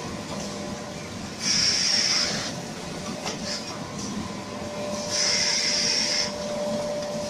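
An automatic facial tissue film bundling machine running with a steady mechanical din. A loud hiss comes about a second and a half in and again about five seconds in, with a single click between them. A thin steady whine joins near the end.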